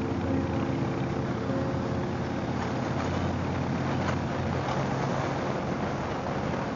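2004 Harley-Davidson Fat Boy's V-twin engine running steadily at cruising speed, with wind and road noise rushing past the microphone.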